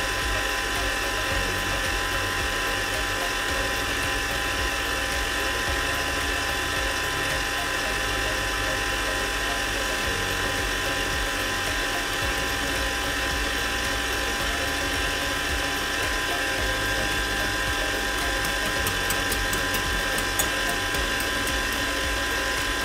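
Electric mixer running steadily with a constant whine, beating cream cheese and sugar for a cheesecake filling. One brief click about twenty seconds in.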